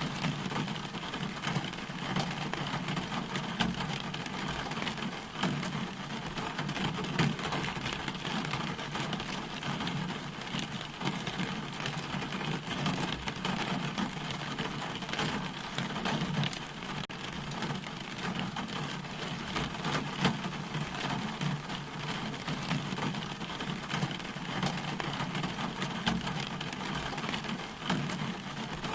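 Steady rain falling, an even hiss with scattered sharp drop impacts ticking through it.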